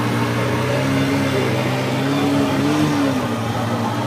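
Outboard boat motor running at speed, a steady drone whose pitch wavers slightly, over the rush of water from the hull and wake.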